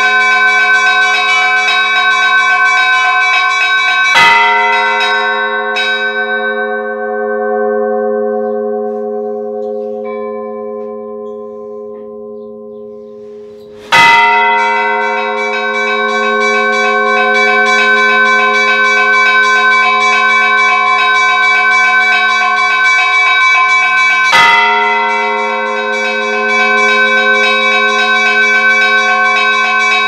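Orthodox church bells ringing together in a full peal, with quick repeated strikes over long-sounding bell tones. A heavy stroke comes about four seconds in, after which the peal thins out and dies away for several seconds. A second heavy stroke near the middle brings the full ringing back, and a third comes about two-thirds of the way through.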